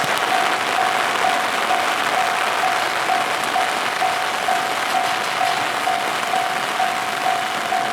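Heavy rain, with a railway level-crossing alarm sounding a steady repeated tone about twice a second.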